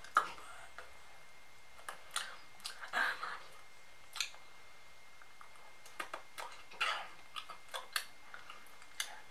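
Irregular light taps and clicks of fingers on a smartphone touchscreen and case, with a few short soft noises between them.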